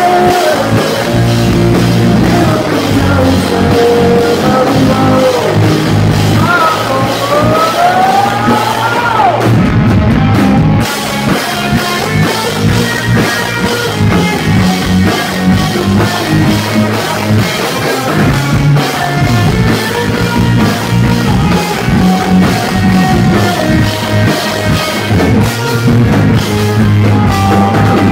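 Live rock band playing a song: a man singing over a drum kit and electric guitars, loud and steady, with the vocal line sliding up and down in pitch near the middle.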